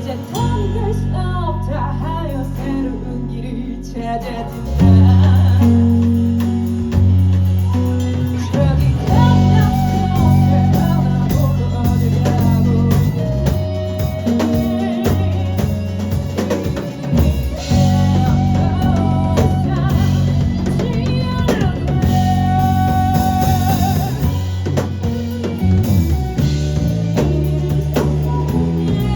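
Live rock band playing a song, with drum kit, guitar and singing. A quieter passage opens, and the full band comes in louder just under five seconds in.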